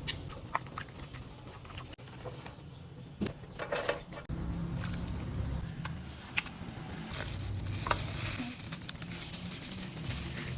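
Kitchen cooking sounds: scattered clicks and knocks of utensils and cookware over a low steady hum.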